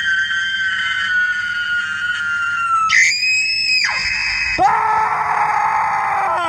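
A voice screaming in long held notes. A steady, very high shriek lasts nearly three seconds, then comes a brief higher one, then a lower held wail over the last two seconds.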